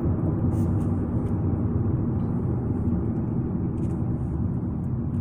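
Steady low rumble of a car's engine and road noise, heard from inside the car's cabin.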